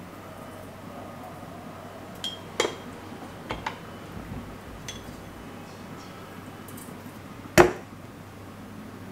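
Light clinks and knocks of a small spoon, ceramic seasoning canisters and their wooden lids as seasoning is scooped out, a few scattered taps in the first half, then one sharper, louder clink about seven and a half seconds in as the spoon works over the mixing bowl.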